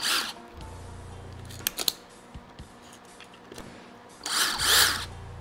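Two short rasping bursts, one at the start and a louder one about four seconds in, with a few small clicks between, as spring-tethered bits are pulled out of and snap back into an impact driver's on-board bit holder.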